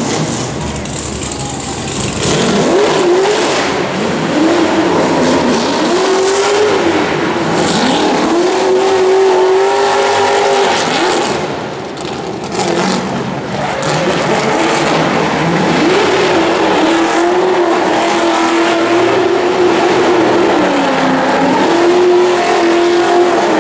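Drift cars' engines revved hard and held high while the cars slide sideways, with tyres screeching and smoking. The engine pitch climbs and holds several times, easing off briefly about twelve seconds in.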